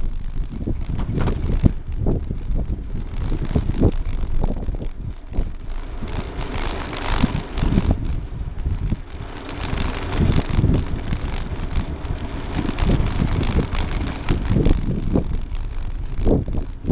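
Wind buffeting the microphone while cycling along a concrete path, with a steady low rumble and frequent small knocks and rattles from the ride; a hiss swells up about six seconds in and again around ten seconds.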